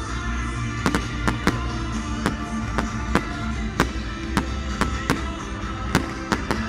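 Fireworks going off in an irregular string of sharp bangs and crackles, a couple or more a second, over music with held notes.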